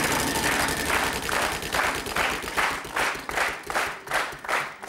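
Studio audience applauding, the clapping falling into an even beat of about two to three claps a second that fades near the end.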